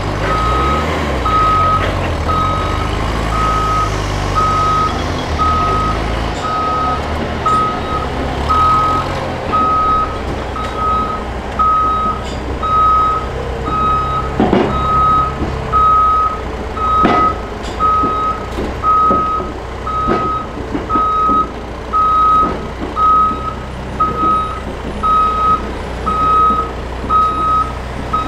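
A vehicle's backup alarm beeping steadily, about once a second, over a running diesel-type engine that revs up and down in the first few seconds. A few sharp knocks come in the second half.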